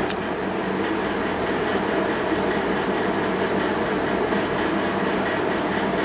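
A steady mechanical hum with hiss, unchanging throughout, with a low hum tone and a higher one held steady under it.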